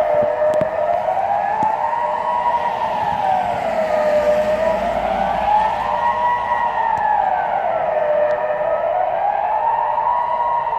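Swiss civil defence siren sounding the general alarm signal during the annual siren test: a steady wailing tone that rises and falls evenly, about one rise and fall every four seconds.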